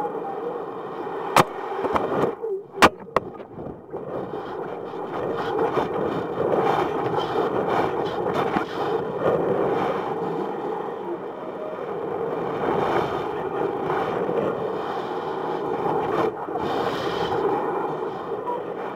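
Rushing wind and rattling picked up by a balloon payload's onboard camera, with two sharp clicks about one and a half and three seconds in.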